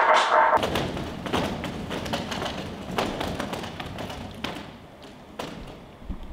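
A loud cry at the very start, then a dense, irregular run of thuds and taps: performers' bare feet and handled chairs knocking on a stage floor as the group moves.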